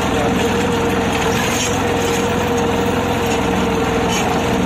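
New Holland 3600-2 tractor's diesel engine running steadily under load while pulling a tined cultivator through the soil, with a constant whine over the engine's hum.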